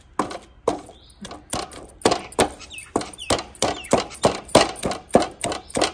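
A wooden masher knocking repeatedly against the bottom of a non-stick wok, mashing softened garlic cloves and onion into a paste for garlic curry. The knocks are quick and uneven, about three or four a second.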